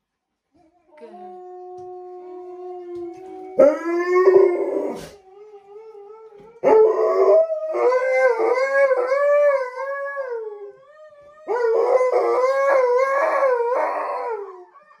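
Alaskan malamute howling in protest at its bath. First comes a quieter, steady note, then three loud howls that waver up and down in pitch; the last two each last several seconds.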